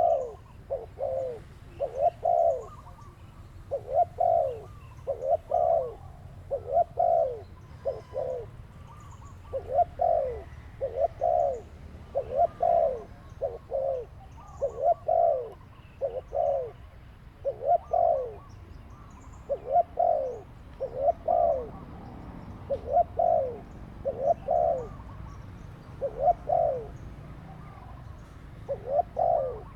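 Dove cooing over and over: short notes that drop in pitch, mostly in pairs, repeating about once a second.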